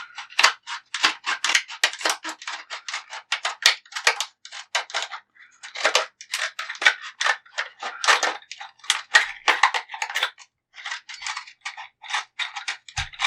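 Stiff plastic retail packaging being cut open: an irregular run of sharp snips and crackles, pausing briefly near the end.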